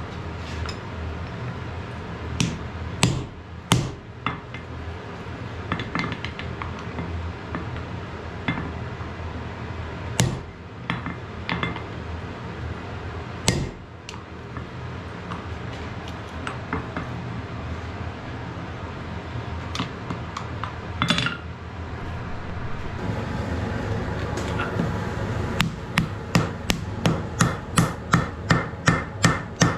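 Hand hammer striking a hot wrought iron axe blank on a steel anvil, over a steady background noise. Scattered single blows come first, then, near the end, a quick run of about two blows a second.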